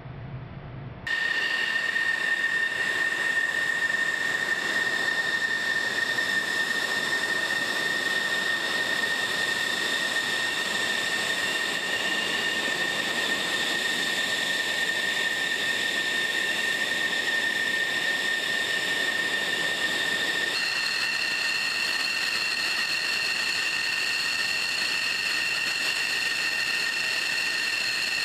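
F-16 fighter jet engine running on the ramp: a steady high-pitched whine over a loud hiss, starting about a second in, with the whine's pitch mix changing abruptly about two-thirds of the way through.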